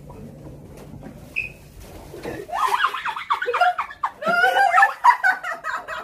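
Women laughing loudly and shrieking in excited surprise, breaking out about two seconds in after a low room hum.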